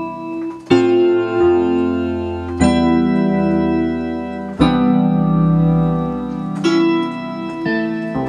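Music: slow, sustained organ-like keyboard chords, a new chord struck about every two seconds.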